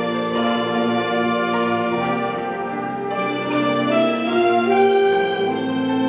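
Student orchestra of violins, cellos and other instruments playing, holding long chords that change every second or two.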